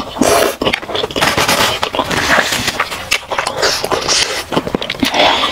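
Close-miked eating of spicy instant noodles: a run of wet chewing, slurping and lip smacking.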